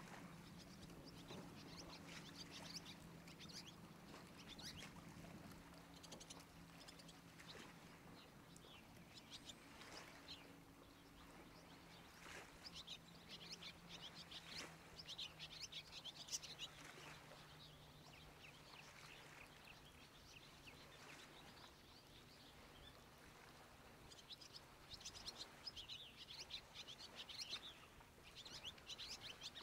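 Faint birdsong: many small birds chirping in quick, high notes, busiest early, around the middle and near the end, over a faint low drone that slowly fades away.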